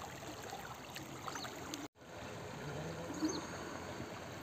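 Shallow creek water running over stones, a steady rush, with a few faint high chirps. The sound cuts out for an instant a little before two seconds in, then resumes.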